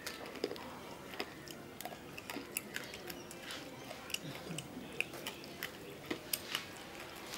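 A person eating chips with his fingers and chewing: faint, scattered crunches and mouth clicks.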